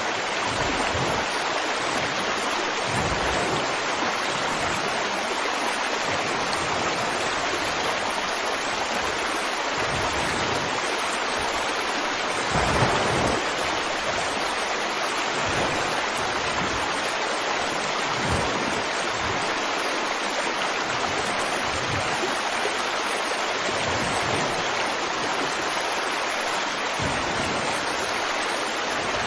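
Water of a stream running steadily, with a few brief deeper surges; the strongest comes about halfway through.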